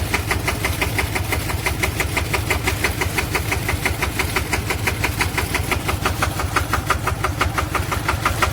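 Engine of a homemade rice-field sprayer machine running steadily, with an even, rapid beat of about eight pulses a second.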